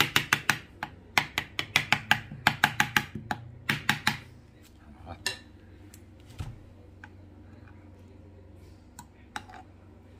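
A metal spoon clinking against a ceramic serving dish while guacamole is spread in it: a quick run of sharp clinks for about four seconds, then a few scattered ones.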